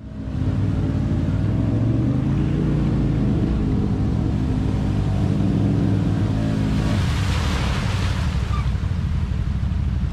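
ATV engine revving under load as the quad pushes through deep muddy water, its pitch rising and falling. About seven seconds in the engine eases and a rush of splashing water takes over.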